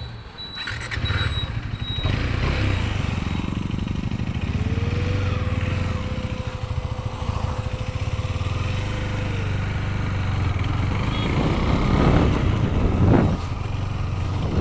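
KTM Duke 390 single-cylinder engine pulling away about a second in, then running steadily at road speed. The bike is new and is ridden gently, not revved hard.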